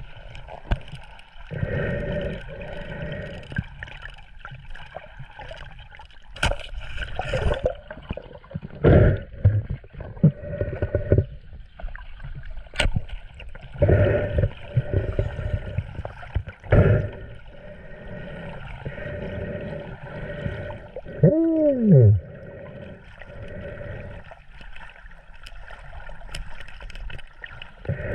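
Sea water sloshing and gurgling in irregular surges. About two thirds of the way in comes one short tone that falls in pitch.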